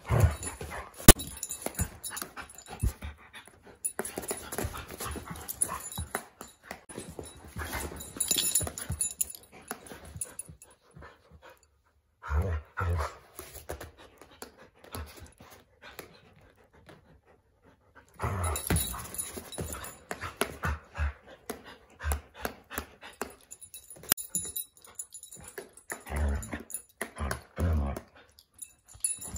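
Dogs play-fighting, one dog chomping at the other over and over: its jaws snap shut in quick runs of loud teeth clacks, with a quiet pause of a few seconds around the middle.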